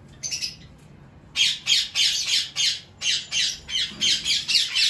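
Shrill bird squawks, a brief pair at first, then a rapid run of about four calls a second from about a second and a half in.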